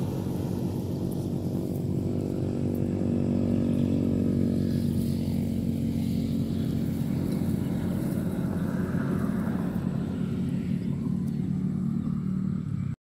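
An engine running steadily off camera, with an even hum that swells a little about four seconds in.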